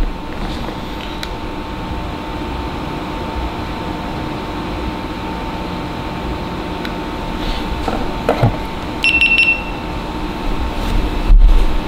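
Steady background hum, then, about nine seconds in, a short high electronic beep from a GoPro Hero 11 Black action camera powering on. A dull thump follows near the end.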